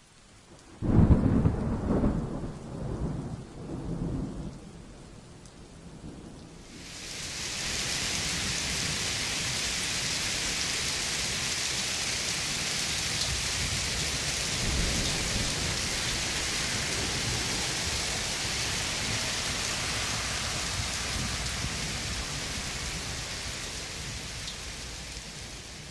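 A sharp thunderclap about a second in, rumbling and fading over the next few seconds. Then a heavy downpour sets in about six seconds in, rain pouring steadily onto pavement.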